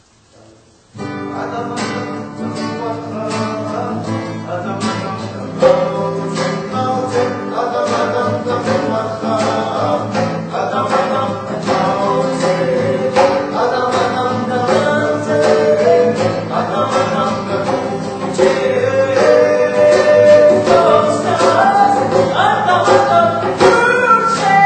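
Acoustic guitar strummed with male voices singing and a djembe hand drum keeping the beat, starting suddenly about a second in and growing louder toward the end.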